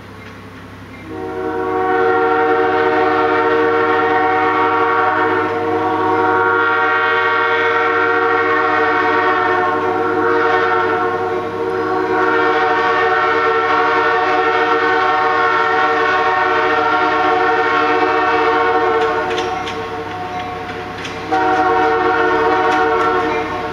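Nathan AirChime J3 snowplow train horn on an approaching locomotive, sounding a chord of several notes in long blasts with brief dips. After a short quieter stretch with the clicks of the train running, it sounds one more blast near the end.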